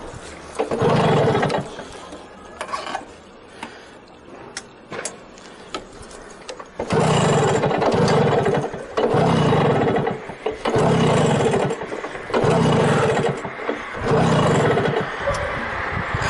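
A 1972 Kreidler Florett's single-cylinder two-stroke moped engine catches in short bursts of a second or so, about six times, and each time cuts out again: the fuel tank has run empty. Between the first burst and the rest there is a quieter stretch of scattered clicks.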